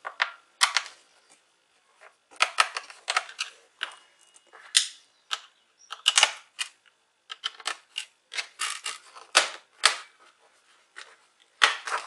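A small screwdriver clicking and scraping against the screws and plastic bottom cover of a Lenovo ThinkPad E450 laptop as the RAM access door is unfastened and pried loose. Irregular sharp clicks come in quick clusters, with short gaps between them.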